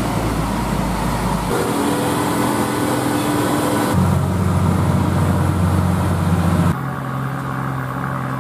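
Heavy diesel trucks, Hino and Mitsubishi Fuso, running under load up a steep climb. The sound cuts abruptly three times, and each short clip holds a steady engine drone at a different pitch.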